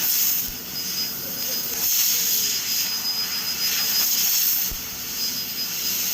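CNC laser cutting machine cutting steel sheet: a loud rushing hiss of the cutting head's gas jet that swells and fades every second or two, over a thin steady high whine.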